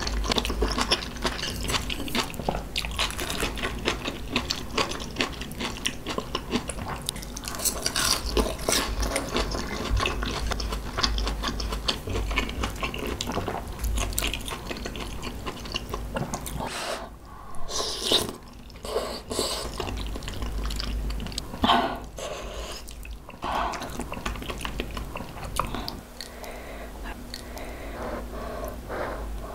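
Close-miked wet chewing and mouth sounds of a person eating saucy kimchi-tuna rice and soft egg soup, a dense run of small clicks and squelches with a couple of brief pauses past the middle.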